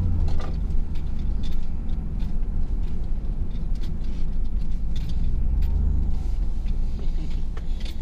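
The supercharged 5.4-litre V8 of a 2001 Ford SVT Lightning pickup running as the truck drives, a steady low rumble, with a few light clicks.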